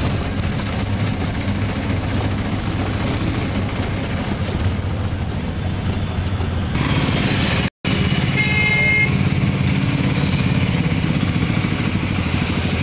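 Auto-rickshaw engine running steadily under the passengers, heard from inside the open cabin in city traffic. The sound drops out for an instant a little before eight seconds in, and a vehicle horn honks once, briefly, just after.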